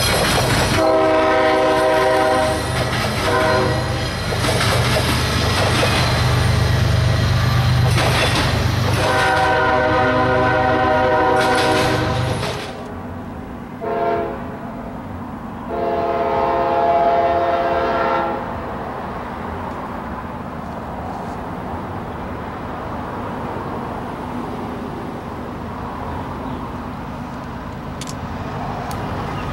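Diesel freight locomotive passing close by with a heavy low rumble, sounding its horn in several blasts, the longest near the end of its pass. Then a distant train horn sounds one short blast and one long blast, over a steady low rumble.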